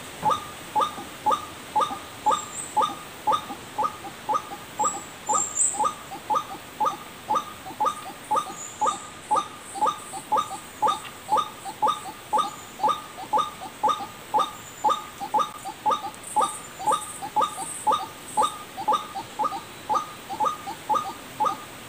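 White-breasted waterhen (ruak-ruak) call used as a bird-trapping lure: a short, falling note repeated evenly about twice a second without a break. Faint high chirps come in now and then.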